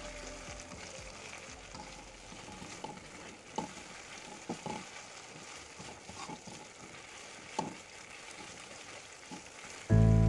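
Spice paste sizzling in hot oil in a pan as it is stir-fried, with a few scrapes of the spatula against the pan. Loud music cuts in just before the end.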